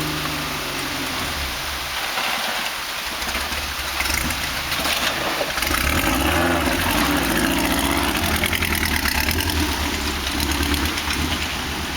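Off-road vehicle engine running at low speed and revving, dropping away about two seconds in and picking up again about a second and a half later.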